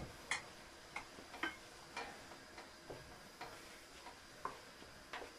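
Wooden spoon stirring chopped chicken filling in a metal pot, giving faint, irregular clicks and knocks against the pot about twice a second.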